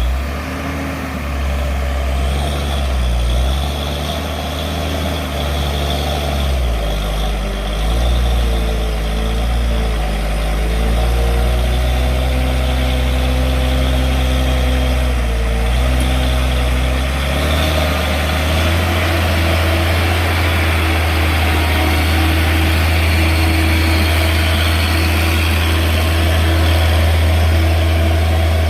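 Truck's diesel engine running, its pitch rising and falling over the first half as the throttle is worked, then settling into a steady, even drone for the rest.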